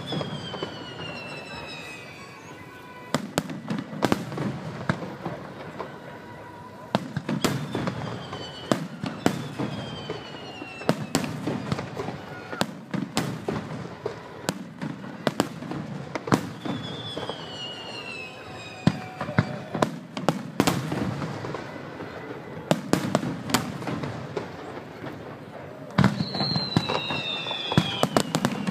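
Aerial fireworks display: many sharp bangs and crackles over a low rumble, with several whistling shells whose pitch falls over a second or two.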